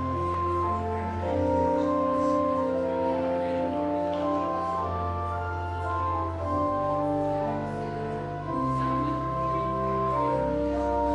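Organ playing slow music in held chords, with long sustained bass notes that change every few seconds.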